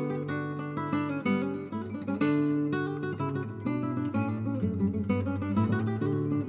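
Background music: strummed and plucked acoustic guitar playing chords.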